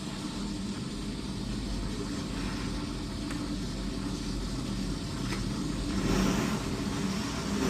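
Boiler's gas burner firing on automatic at low load, its flame and blower making a steady low rumble with a hum, swelling slightly about six seconds in.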